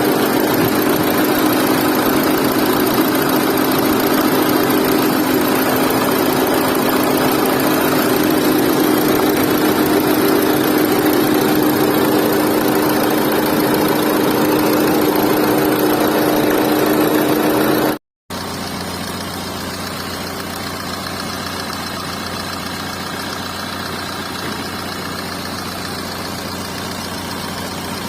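Renault Duster's 1.5-litre diesel engine idling steadily with a heavy engine noise, the fault the car is being checked for. The sound breaks off abruptly about two-thirds of the way through, then resumes quieter and lower-pitched.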